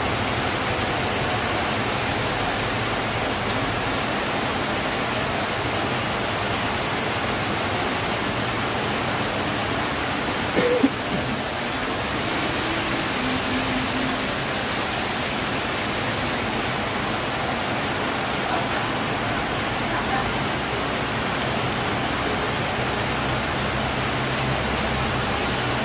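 Heavy rain falling steadily, an even, dense hiss. About ten and a half seconds in there is a brief sharp knock.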